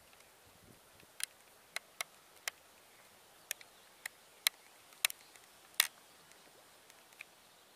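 A series of about ten sharp, irregularly spaced clicks over a faint background hiss, bunched in the first six seconds, with one more, weaker click near the end.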